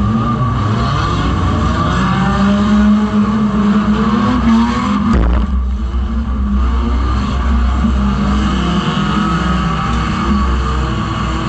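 Banger racing car's engine running as the car drives on a mud track, heard from inside its stripped-out cabin, the engine note rising and falling, with a short knock about five seconds in.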